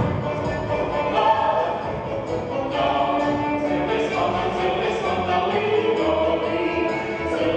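Latvian folk dance music with a choir singing the melody and a regular low beat underneath.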